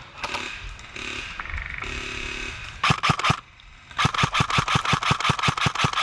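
Airsoft rifle firing on full auto: a short burst about three seconds in, then a long unbroken stream of rapid shots at about ten a second from about four seconds in.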